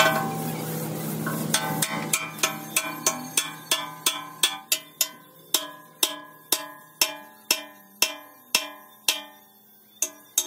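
Sledgehammer striking a steel excavator bucket tooth to drive it onto the bucket's lip: some twenty ringing metal-on-metal blows at about two a second, spacing out a little toward the end. A steady low hum sits under the first second or so.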